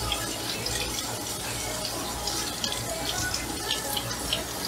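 Kitchen faucet running steadily into a stainless steel sink, the stream splashing over hands rinsed beneath it.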